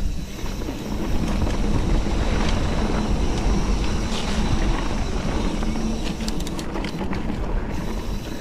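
Mountain bike ridden along a dirt trail: wind buffeting the camera microphone over a steady rumble of tyres and bike. A short run of sharp rattling clicks comes about six seconds in.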